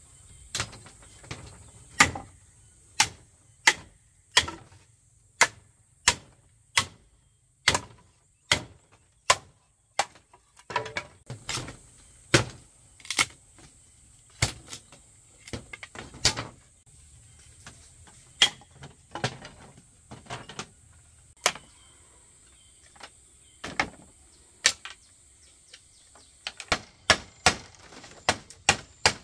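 Machete blade striking green bamboo: a long run of sharp knocks, at first about one a second, then irregular, and quickening to about three a second near the end as she chops a short length. A steady faint high hiss sits behind them.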